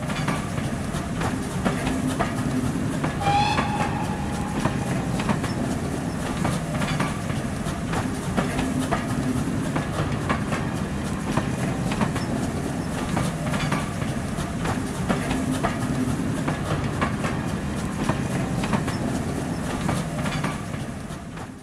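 A train running along track, its wheels clicking irregularly over the rails, with a brief high squeal about three seconds in. The sound fades out at the very end.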